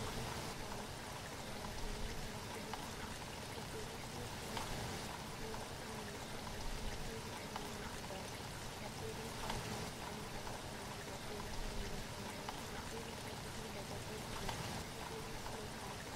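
Steady rushing water noise, an even hiss with no pauses.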